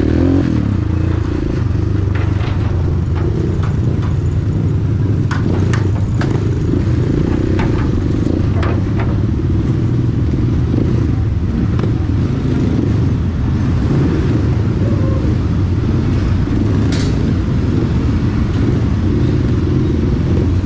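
Motorcycle running while being ridden, a steady low rumble throughout. A few short clicks or knocks are scattered through it.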